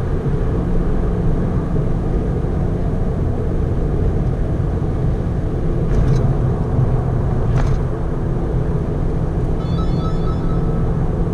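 Mitsubishi Lancer Evolution IV's turbocharged 4G63 four-cylinder running steadily at expressway cruising speed, with tyre and road noise, heard from inside the cabin. Two brief knocks come about six and seven and a half seconds in.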